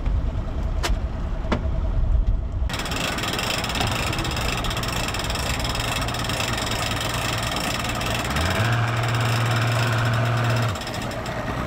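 Mercury Pro XS outboard motor running slowly, then throttled up with a rising pitch about eight seconds in. It holds a louder, steady note for about two seconds, pushing the boat up onto its trailer, then eases off. A steady hiss runs under the engine for most of the clip.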